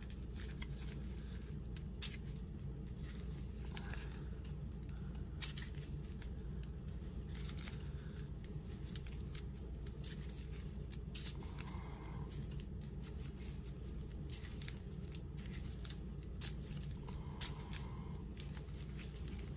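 Playing cards and small game pieces handled on a tabletop: scattered light clicks, taps and card slides over a steady low hum.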